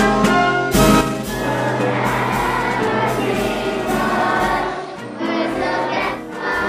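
Patriotic music with brass in the first second, then a large group of children singing along with it.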